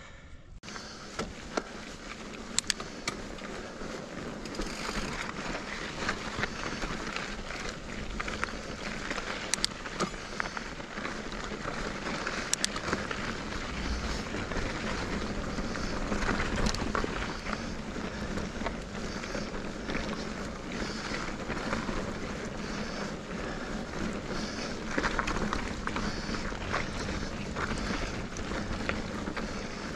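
2021 Giant Reign Advanced Pro 29 mountain bike rolling over a dirt and rock singletrack: steady tyre noise with rattles and a few sharp clicks, and wind rushing over the camera microphone.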